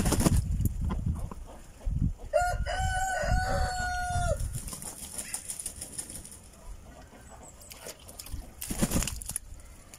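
Rouen duck flapping its wings and splashing in a metal tub of water, then a rooster crows once for about two seconds, a little over two seconds in. Another short splash comes near the end.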